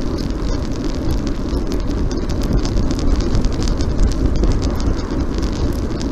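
Wind buffeting a microphone and road noise while riding a road bike: a steady low rumble with a fine crackle.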